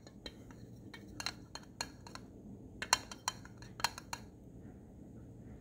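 A spoon clinking against the inside of a glass cup while stirring liquid: a dozen or so irregular, sharp clinks that stop about four seconds in.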